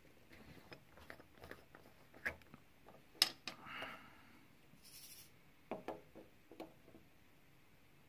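Soft, irregular clicks and taps of square resin drills being picked up with a diamond painting pen and pressed onto the adhesive canvas, with one sharper click about three seconds in.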